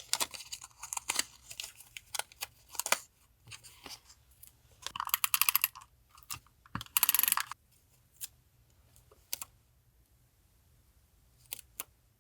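Paper collage materials being handled on a desk. A run of small taps and rustles comes first, then two short rasping bursts about five and seven seconds in, then a few sparse taps.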